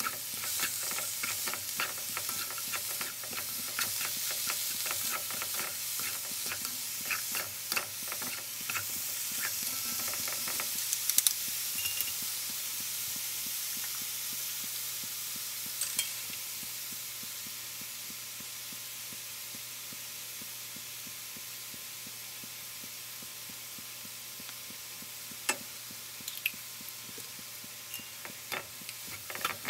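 Shredded cabbage sizzling in a hot wok while it is tossed with a wooden spatula and chopsticks. The utensils scrape and clack against the pan for the first ten seconds or so. After that the sizzling goes on steadily with only occasional taps, and a few knocks come near the end.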